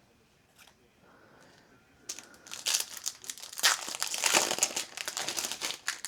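Foil wrapper of a Topps trading-card pack crinkling and being torn open, starting about two seconds in and going on in dense crackles to the end.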